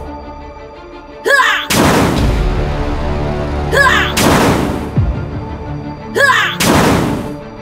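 Background music with a sound effect repeated three times, about two and a half seconds apart: a short rising tone, then a loud bang that fades away.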